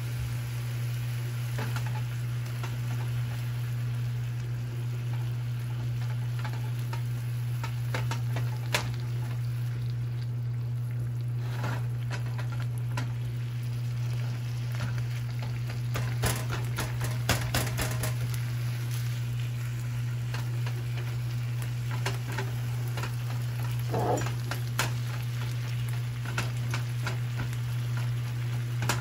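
Ground beef sizzling as it browns in a skillet, with a slotted spatula scraping and tapping the pan in scattered clicks, busiest in the middle and near the end. A steady low hum runs underneath.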